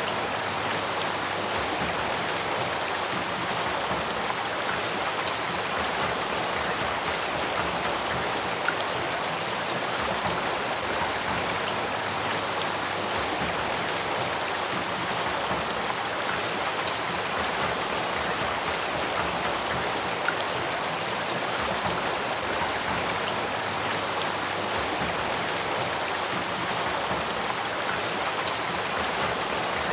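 Spring-fed mountain stream running steadily, an even rushing of water with no change in level. Two faint ticks stand out briefly, one about a third of the way in and one about two-thirds in.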